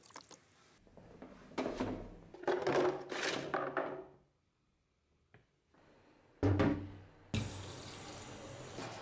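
A small anvil lifted out of a tub of rust-remover liquid with sloshing and splashing, then a knock as it is set down in a stainless steel sink. About three quarters of the way in, a tap starts running, water pouring steadily onto the anvil in the sink.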